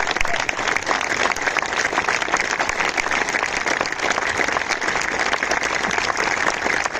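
Large seated audience applauding: a dense, steady clatter of many hands clapping.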